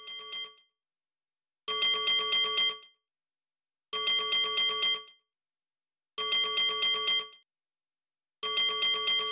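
Telephone ring used as the intro sample of a trap beat: four rings, each about a second long with a fast trill, repeating every two seconds or so, with the tail of a quieter ring at the very start.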